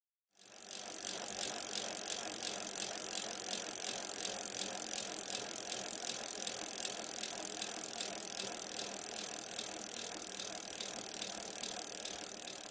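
A steady, rapid fine ticking over a hiss, fading in just under a second in and fading out near the end.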